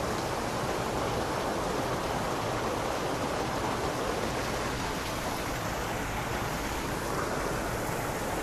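Steady rushing of water pouring over a canal weir, an even noise with no breaks.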